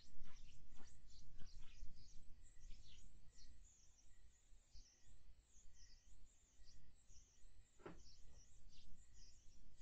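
Dense high chirping of small creatures at night: many short, falling chirps overlapping one another, over a faint steady high tone and a low rumble. One sharper click stands out about eight seconds in.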